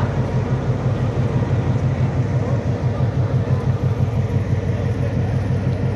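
Diesel locomotive engine idling: a steady, low, fast-pulsing throb.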